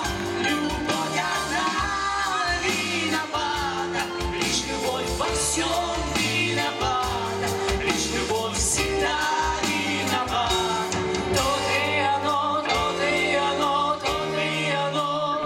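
Live pop-rock band playing with female vocals: a woman singing into a microphone over drums, bass guitar, electric guitar and keyboards.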